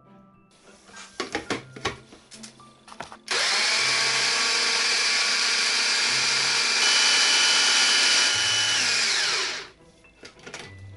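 AEG personal blender grinding sugar with lemon zest: a few clicks and knocks, then the motor runs loud and steady for about six seconds and winds down.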